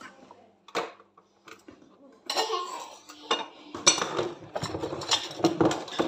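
Dishes clinking and clattering as they are hand-washed at a kitchen sink. There is a single knock about a second in, then a busy run of clatter from about two seconds on.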